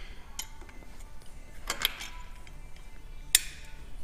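A few sharp metallic clicks and clinks of washers, bolts and hand tools being handled during work on a tractor's alternator mount, the loudest near the end.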